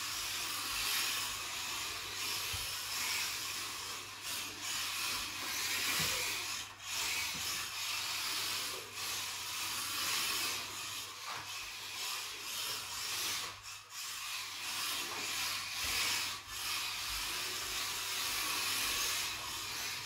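WLToys micro RC drift cars driving and sliding on a mat track: small electric drivetrains whirring and hard drift tyres scrubbing, a hissing noise that rises and falls as they throttle and slide.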